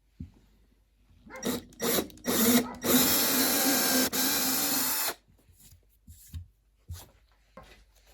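A small power tool starts in two or three short bursts, then runs steadily for about two seconds and stops suddenly, with a few light knocks of handling before and after.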